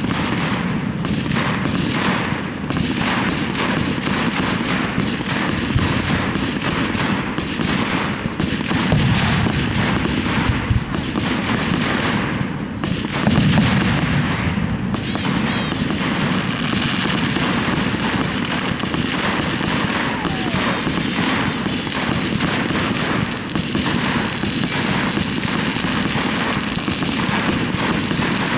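Fireworks display: aerial shells bursting one after another in quick, overlapping succession, with no let-up.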